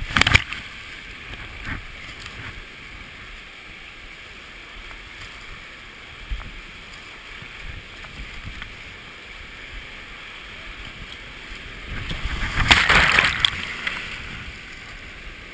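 Whitewater rushing steadily past a kayak running a creek rapid. A wave splashes over the bow at the start, and near the end a longer, louder surge of water crashes over the deck and the camera.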